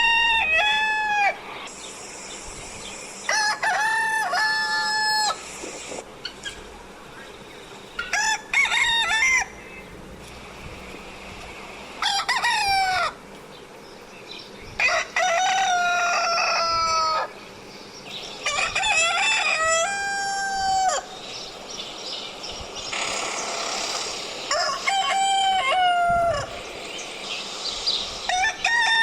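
Rooster crowing over and over, about eight cock-a-doodle-doos a few seconds apart, each lasting one to two seconds and dropping in pitch at the end.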